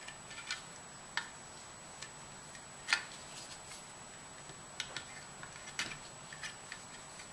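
Scattered light clicks and taps from a finned heatsink and circuit board being handled and turned over, the loudest about three seconds in.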